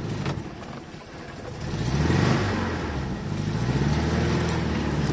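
ZAZ-968 Zaporozhets' air-cooled V4 engine running, revving up about a second and a half in and then holding at a steady higher pitch.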